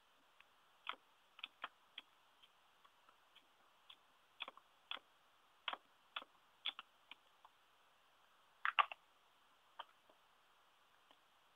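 Irregular light taps and clicks of an ink pad's plastic case dabbed against a rubber stamp on a clear acrylic block, with a louder double knock about three quarters of the way through as the stamp is handled on the card and desk.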